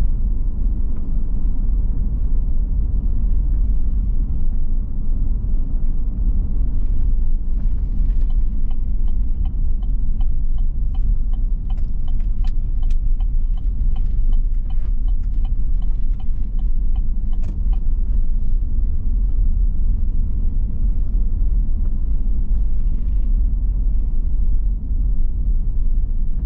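Steady road rumble of a car driving, heard from inside the cabin. Through the middle of the stretch a turn-signal indicator ticks at about two ticks a second for several seconds, then stops.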